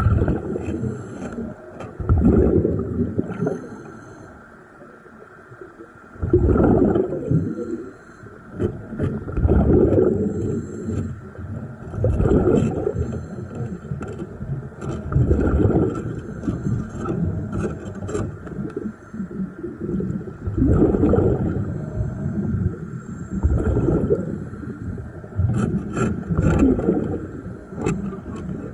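A scuba diver breathing through a regulator underwater: a rumbling burst of exhaled bubbles about every three seconds, with a brief lull a few seconds in.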